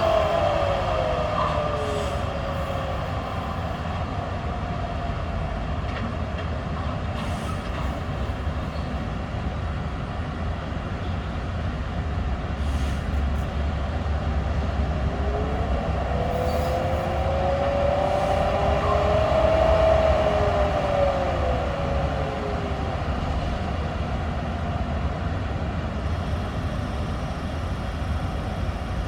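Freight train of tank wagons rolling through slowly with a steady rumble, and long wheel squeals that slide down in pitch at the start and rise and fall again about halfway through.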